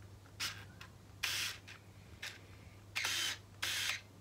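Nikon F801S 35mm SLR firing several frames: about five separate bursts of shutter and mirror clack with the whirr of its built-in motor advancing the film, the longer bursts lasting about a third of a second.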